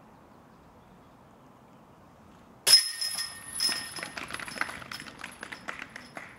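A disc hitting the chains of a disc golf basket, a putt made: a sudden metallic crash about two and a half seconds in, then the chains jingle and rattle for a few seconds as they settle.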